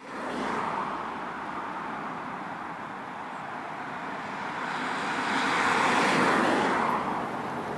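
Passing vehicle noise: a steady rushing that swells to its loudest about six seconds in, then eases off.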